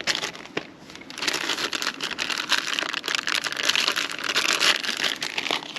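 Crinkling and rustling from something being handled, thin at first and dense from about a second in until near the end, with many small clicks.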